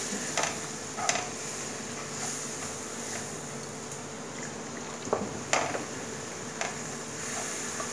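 Onion and spice masala sizzling in oil in a nonstick pan while a wooden spatula stirs it, scraping and knocking against the pan several times, over a faint steady hum.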